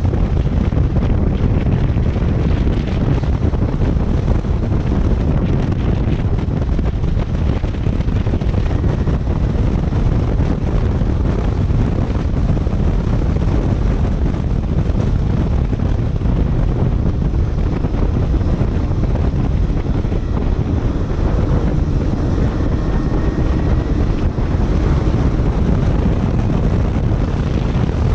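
Kawasaki Ninja 250 motorcycle under way, its parallel-twin engine running beneath heavy, steady wind buffeting on the microphone at riding speed.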